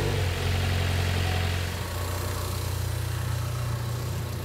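Ford Focus RS's 2.3-litre turbocharged four-cylinder engine idling just after being started, a steady low hum that drops a little in level about two seconds in.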